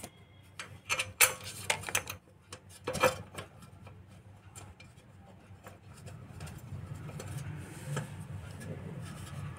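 Scattered clicks and light metallic knocks of screws, washers and a ceiling-fan blade being handled and fitted to the fan motor, mostly in the first three seconds with one more near the end. A low hum grows through the second half.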